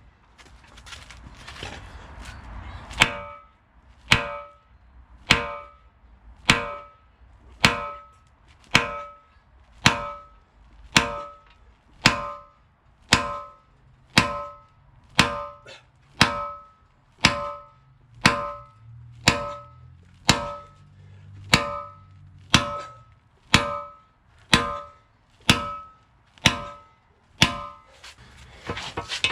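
Steel hammer blows ringing on metal, struck steadily about once a second, some two dozen in a row starting about three seconds in: driving a worn, seized tapered attachment pin out of a Bobcat 753 loader.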